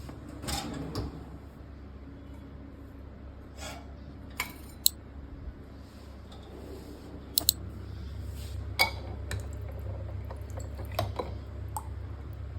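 Scattered clinks and knocks of dishes or glassware being handled, over a low steady hum.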